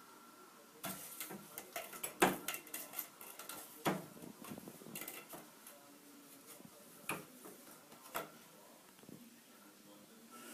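Irregular clattering clicks and knocks of hard objects, a quick run of them in the first half with the loudest knocks about two and four seconds in, then two single knocks later.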